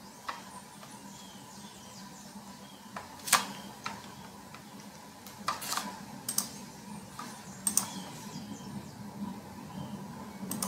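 About ten sharp clicks at uneven intervals from computer controls being worked, over a faint steady hum.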